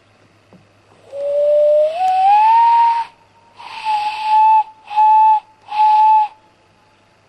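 Common loon calling: one long note that rises in steps, then three shorter notes held at a steady, slightly lower pitch.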